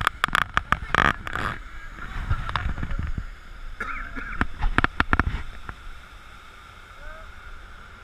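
A river-rapids raft boat riding turbulent water, with churning and sloshing around the hull and clusters of brief sharp noises in the first second and a half and again around five seconds in; voices are heard now and then.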